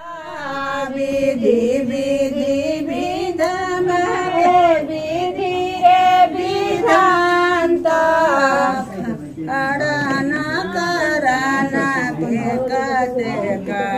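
Women singing a Chhath devotional folk song (chhath geet), a slow melody with long held notes.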